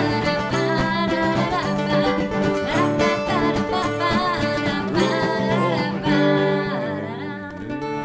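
Background music: a country-style song with guitar and singing, getting quieter near the end.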